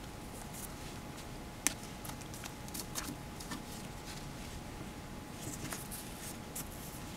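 Handling sounds on a tabletop: a scatter of small clicks and light rustles as metal alligator clips, a small disc magnet and a cloth swatch are moved about, with one sharper click about one and a half seconds in.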